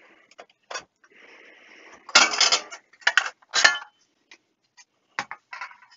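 Fluke 8810A bench multimeter's case being taken apart by hand. A soft scrape is followed by three loud clatters and knocks of the cover and chassis over about two seconds, then a few lighter clicks near the end.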